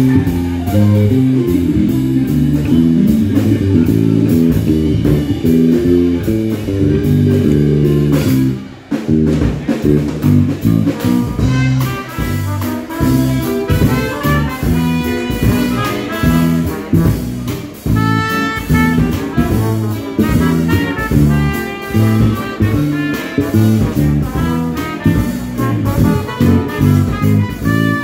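Live Dixieland jazz band. For the first eight seconds or so an electric bass guitar solos over drums. After a short break about nine seconds in, trombone, trumpet and saxophone come in together with the rhythm section.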